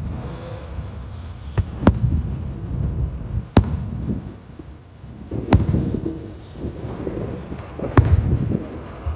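Aerial firework shells bursting: five sharp bangs about one to two and a half seconds apart, each followed by a low rumbling echo.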